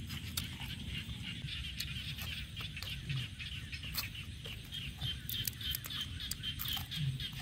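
A steady chorus of rapid, high-pitched chirping calls. Scattered sharp clicks and smacks of a man chewing grilled frog sound over it.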